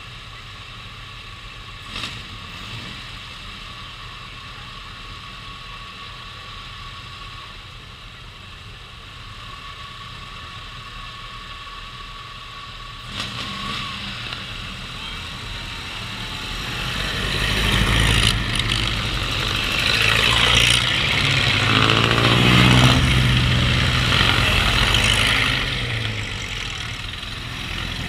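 Ford Model T four-cylinder engines running at a flag start. The sound grows louder from about halfway through and is loudest for several seconds as a car's engine comes close, then eases a little near the end.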